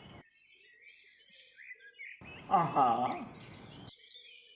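Small birds chirping throughout. A brief human voice sound comes about two and a half seconds in and is the loudest thing heard.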